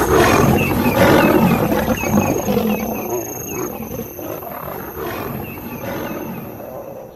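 Lions roaring in a fight, a dense, rough din that is loudest in the first couple of seconds and fades away near the end. A faint high chirping repeats over it.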